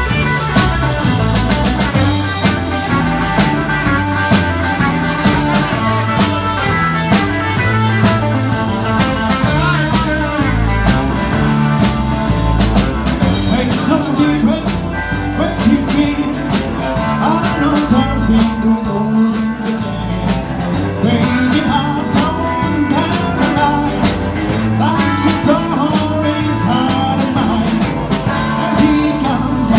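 Live rock and roll band playing: electric guitars over a drum kit keeping a steady beat.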